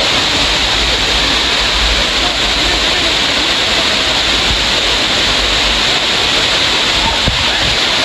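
Waterfall with water cascading over rock in a loud, steady rush.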